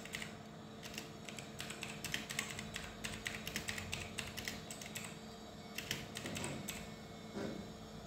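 Typing on a computer keyboard: quick, irregular runs of key clicks that stop about five seconds in, with a short last burst about a second later, over a steady low hum.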